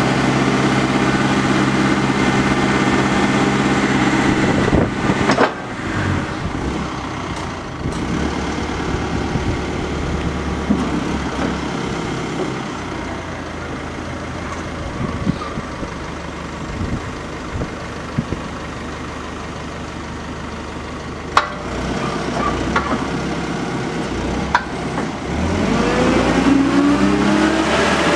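Linde H80D-01 forklift's diesel engine running at high revs, then dropping to a quieter, steadier run after about five seconds, with occasional sharp clicks and knocks. Near the end it revs up again, rising in pitch as the truck drives off.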